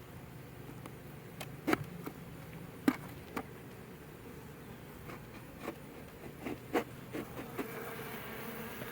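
Honeybees buzzing steadily around a hive, with scattered sharp taps, the loudest about three seconds in.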